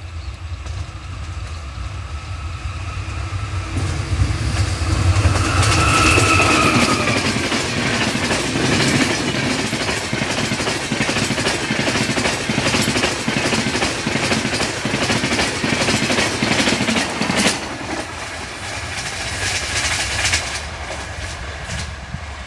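A train passing at speed, wheels clattering over the rail joints, with a low locomotive rumble as it approaches. A brief high tone sounds about six seconds in. The clatter is densest in the middle, drops sharply about three quarters of the way through, and carries on more quietly.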